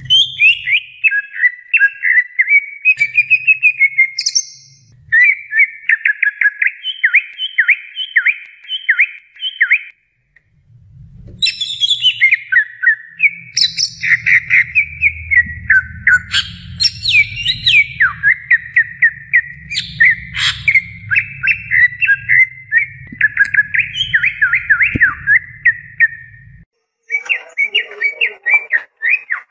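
Cucak ijo (green leafbird) singing a fast, continuous chattering song of rapid, repeated high whistled notes. The song breaks off briefly about a third of the way in, then resumes. Near the end it turns rougher and scratchier.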